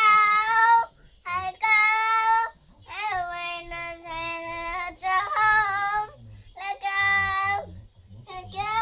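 A three-year-old girl singing on her own with no accompaniment heard, in high held notes broken into short phrases with brief pauses for breath.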